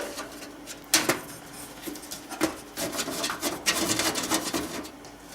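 Thumbscrews being turned by hand on an LC-Power 2004MB micro-ATX PC case: scratchy rubbing of the screw threads and panel, with a sharp click about a second in and another about halfway through.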